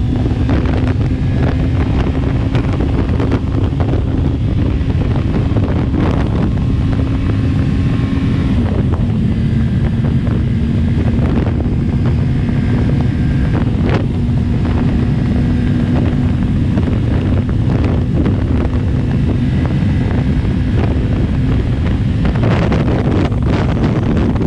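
Motorcycle engine droning steadily at highway cruising speed under heavy wind rush on the microphone. The engine note drops slightly about eight seconds in.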